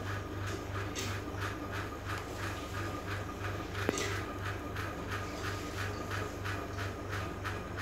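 Small electric motor in a homemade cardboard model train running, with an even rhythmic pulsing about four times a second. A single sharp click about four seconds in.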